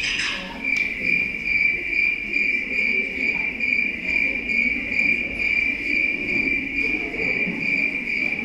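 Recorded cricket chirping played as a sound effect over the hall's speakers: one steady, high-pitched trill with a fast, even pulse. It comes in just under a second in, as the preceding music ends, and signals night while the performers lie asleep.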